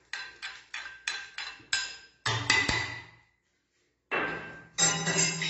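Steel spoon tapping and scraping roasted coconut out of a metal tempering ladle over a steel pot: a quick run of metal clinks, about three a second, some ringing briefly, which stops a little before halfway. A short burst of noise follows near the end.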